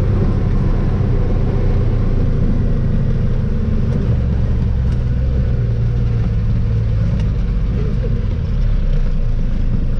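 Truck engine running steadily under way, with low road rumble, heard from inside the cab.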